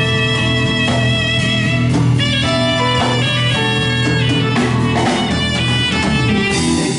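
Live band playing an instrumental passage between verses: saxophone lines over electric guitar, bass guitar and drum kit, with no singing.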